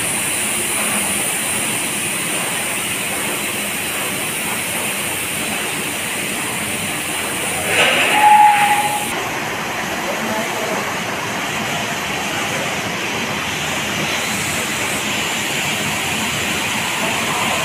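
Steady hissing hum of a snack-food production line running: continuous fryer and conveyors. A brief louder sound about eight seconds in.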